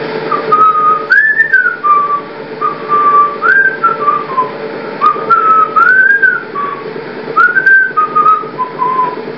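A person whistling a tune: short melodic phrases of held notes with arching upward swoops, repeated several times.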